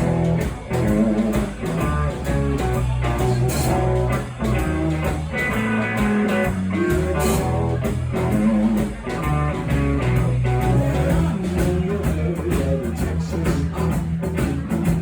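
Live blues-rock band playing an instrumental passage led by electric guitar, over bass and drums.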